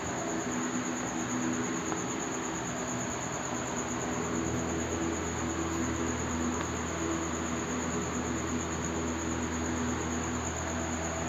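Steady background noise: a constant high-pitched tone over a low hum and an even hiss, with no strokes or breaks.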